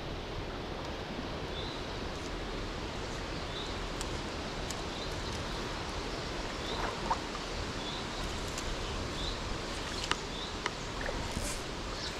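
Steady rush of a shallow stream running over stones. A short high chirp repeats every second or two above it.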